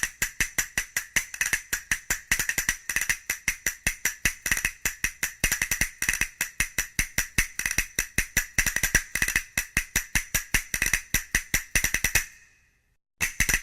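Tambourine played in a fast, steady rhythm of about five or six jingling strikes a second. It dies away about twelve seconds in, and after a brief silence a similar pattern starts again near the end.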